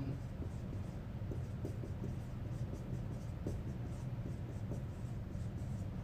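Dry-erase marker writing on a whiteboard: many short, faint scratching strokes as words are written, over a steady low room hum.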